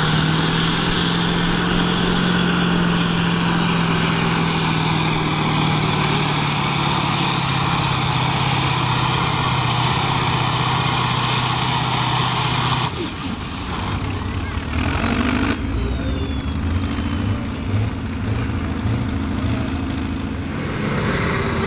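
Kirovets K-700 tractor's turbocharged diesel engine at full load pulling a tractor-pull sled, its pitch slowly sagging as the sled bogs it down. About thirteen seconds in the engine comes off full power abruptly and the turbocharger's whistle winds down in a falling tone; near the end a rising whistle returns.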